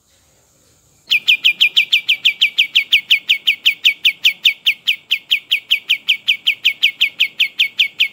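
A songbird singing a long rolling series of short, downward-sliding whistled notes, about six a second, starting about a second in after a near-silent gap.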